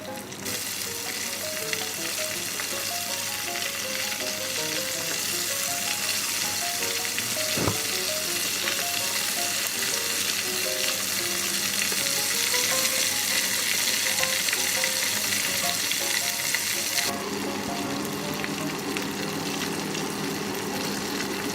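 Floured chicken drumsticks frying in hot oil: a dense, steady sizzle that starts just after the beginning and turns quieter and lower about 17 seconds in. A single sharp click comes about 8 seconds in.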